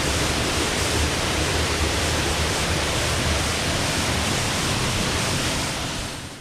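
Small creek waterfall rushing steadily and loudly close to the microphone, fading out near the end.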